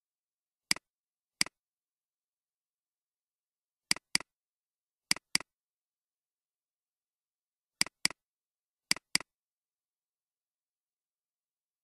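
Computer mouse button clicks: ten sharp clicks, mostly in quick pairs, as menu items are clicked.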